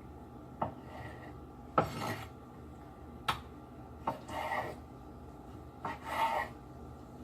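Kitchen knife cutting raw squid tubes into pieces on a cutting board: several separate cuts, some a short sharp tap of the blade hitting the board, others a longer scraping stroke.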